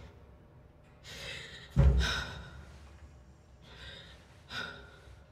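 A young woman's stifled, ragged gasps and crying breaths, muffled behind a sweater sleeve held over her mouth. A heavy low thump comes about two seconds in.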